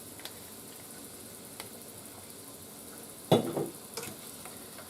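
Ground beef sizzling softly in a skillet on low heat, with a few faint ticks. About three seconds in, a cooking utensil knocks loudly against the pan.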